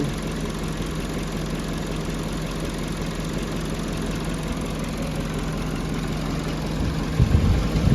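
Peugeot 207 petrol engine idling steadily, with its broken intermediate rocker arm on cylinder 4 replaced and compression restored. A few low thumps come about seven seconds in.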